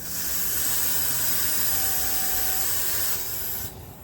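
Refrigerant gas hissing out of a gauge hose as the recovery hoses are bled to purge the air from them; a steady, loud hiss that stops abruptly near the end.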